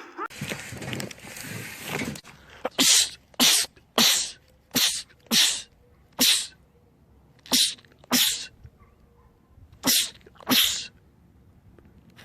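A man sneezing over and over in quick succession: about ten short, sharp sneezes, after a couple of seconds of breathy noise.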